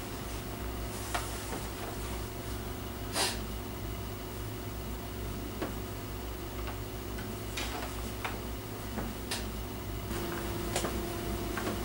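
A steady low hum with scattered small clicks and taps. One louder knock comes about three seconds in, and a second steady tone joins the hum near the end.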